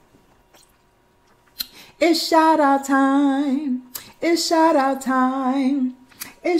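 A woman singing unaccompanied: two held, wavering sung phrases of about two seconds each, starting about two seconds in after a near-quiet start.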